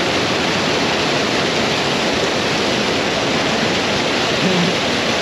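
Steady rush of flowing river water, a loud, even roar that does not change.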